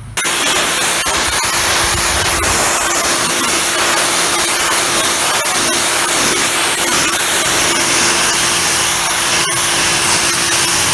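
Hard water spray hitting concrete, rinsing muriatic acid off a rust stain: a loud, steady hiss with a steady hum underneath. It starts abruptly.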